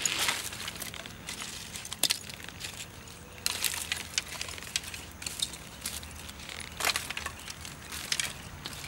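Irregular crunching and cracking with a few sharp clicks, in uneven bursts, as of things being handled, crushed or snapped by hand.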